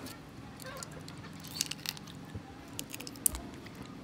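Raw prawns being peeled by hand over a steel bowl of water: scattered sharp clicks and crackles of shell breaking, a handful of them louder, with small splashes of fingers in the water and a low steady drone underneath.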